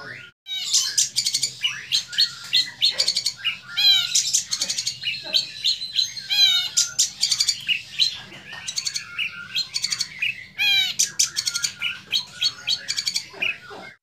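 Young long-tailed shrike (cendet) singing in its cage: a fast, continuous warble of varied chirps, whistles and quick repeated sweeping notes, showing off a rich song repertoire built from mimicked material.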